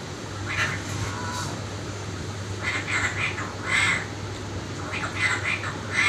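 Pet parrot giving a series of short, scratchy calls, some single and some in quick clusters, over a steady low hum.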